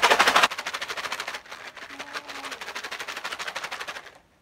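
Crispy macaroni snack rattling inside a lidded plastic food container as it is shaken hard to coat it with chili flakes. There is a loud burst at the start, then a fast, even rattle that stops shortly before the end.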